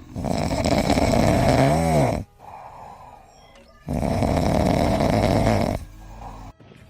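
A sleeping pet snoring loudly: two long rasping snores about four seconds apart, the first ending in a pitched wobble.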